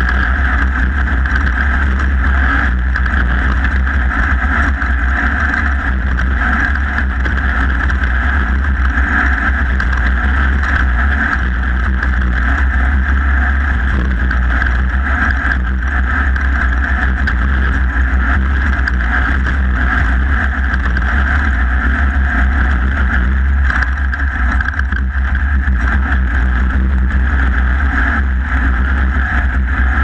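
Off-road race buggy's engine running hard and steady at speed, a constant drone with no let-up as the car races over a dirt course.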